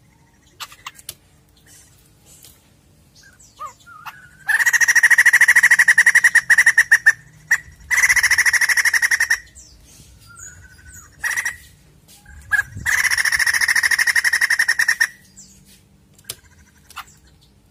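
White-crested laughingthrush calling loudly in three long bursts of rapid, repeated cackling notes, with short single calls between them.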